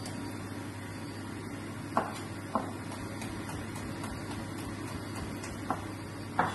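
Chef's knife cutting green vegetables on a plastic cutting board: four sharp knocks of the blade on the board, spread out, with fainter ticks between them. A steady low hum runs underneath.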